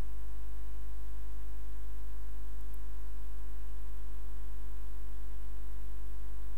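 Steady electrical mains hum, a low drone with a stack of even overtones, unchanging throughout. No other sound stands out.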